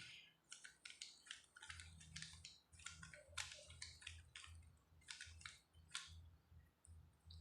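A 3x3 Rubik's cube being turned by hand: a quick, irregular series of faint plastic clicks and scrapes as the layers are twisted through the algorithm that finishes the first layer.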